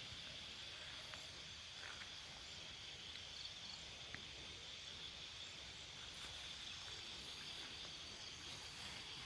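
Faint, steady high chirring of night insects, with a few soft clicks.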